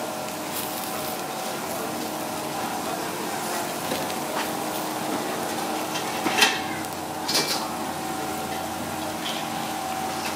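Steady background hum of a busy street food stall with faint voices, and sharp metal clinks of a serving spoon and utensils, the loudest two about six and a half and seven and a half seconds in.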